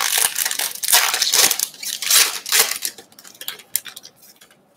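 A wrapped pack of baseball cards being torn open by hand, the wrapper ripping and crinkling loudly for about three seconds. It then dies down to a few light rustles and clicks as the cards are slid out.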